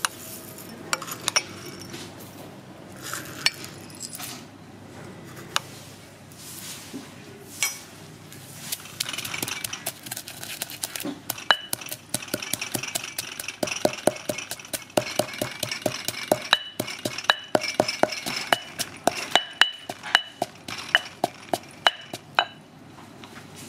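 Granite mortar and pestle pounding coriander seeds with other spice-paste aromatics: rapid stone-on-stone strikes, a few each second, each with a short ringing clink. A few scattered knocks come first, and the steady pounding starts about eight seconds in and stops near the end.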